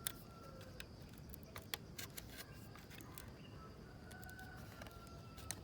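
Faint, scattered clicks and taps of small plastic parts and ribbon-cable connectors being handled and pressed into place inside a Dell Latitude E5510 laptop during reassembly.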